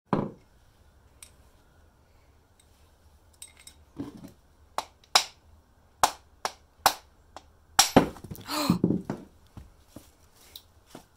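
Irregular sharp clicks and knocks of hand tools and metal engine parts being handled, with a denser, louder clatter about two to three seconds before the end.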